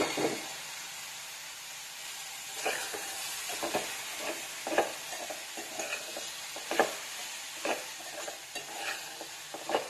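Boiled green peas frying in spiced oil in an aluminium pot with a steady sizzle. A steel spoon stirs them, scraping and knocking against the pot in irregular strokes from about three seconds in.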